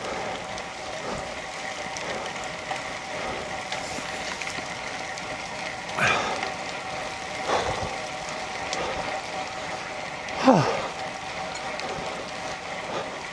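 Bicycle riding up a wet, loose gravel track in pouring rain: steady noise of tyres on wet gravel and rain. Three short sounds stand out, about six, seven and a half and ten and a half seconds in. The last is the loudest and falls sharply in pitch.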